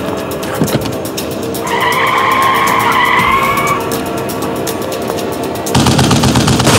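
Car tyres squealing in a skid for about two seconds over dramatic music. Near the end, a rapid burst of machine-gun fire starts and is the loudest sound.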